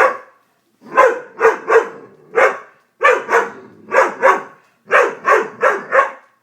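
Doberman barking repeatedly in quick runs of three or four barks, about two barks a second, with short pauses between the runs.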